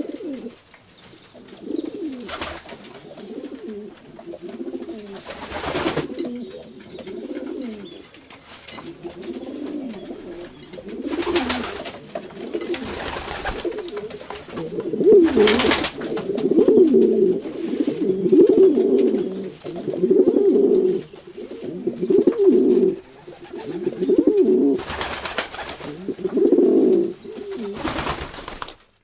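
Several pigeons cooing continuously in repeated low, throaty phrases, louder and denser in the second half, with a few short rushes of noise among the calls. The sound cuts off abruptly near the end.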